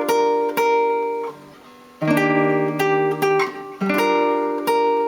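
Guitar chords played in chord-melody style, struck about six times and left to ring, with a short quiet gap in the middle.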